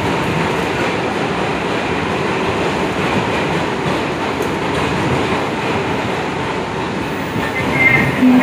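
Steady running noise of a subway shuttle train beside the platform. Brief high-pitched tones sound near the end.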